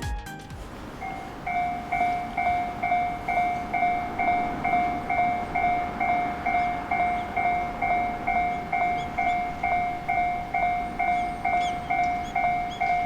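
Japanese railway level-crossing warning bell starting up about a second in and ringing steadily, a little over two strikes a second: the crossing's alarm for an approaching train.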